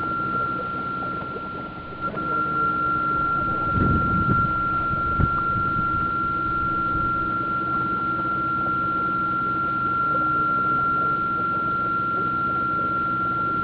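A steady high-pitched electric whine with a lower hum beneath it, from an electric model tug as picked up by its onboard minicam. It breaks off briefly about two seconds in, and a few muffled bumps come about four to five seconds in.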